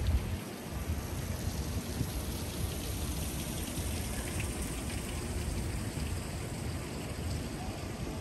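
Steady outdoor street ambience: an even wash of noise with a low rumble, and one brief low thump at the very start.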